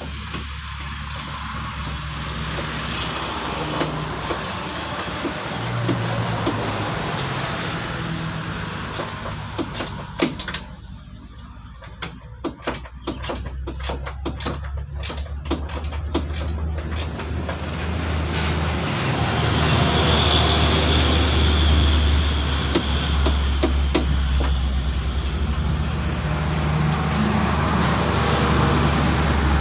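Low vehicle-like rumble of engine traffic that swells louder in the second half. In the middle comes a run of small sharp clicks and knocks from hand work on the radiator fittings.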